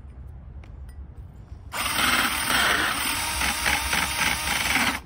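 Milwaukee cordless drill spinning a hole saw through an old wooden floorboard, its teeth cutting out a round plug. It starts a little under two seconds in and stops suddenly near the end.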